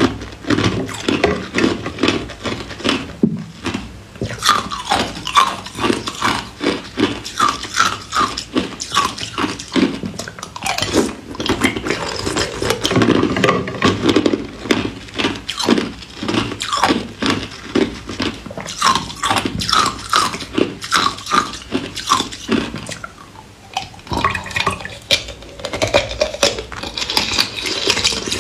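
Close-up crunching and chewing of juice-soaked ice chunks, many quick crunches a second with a wet, slushy quality. They ease off briefly near the end, then pick up again.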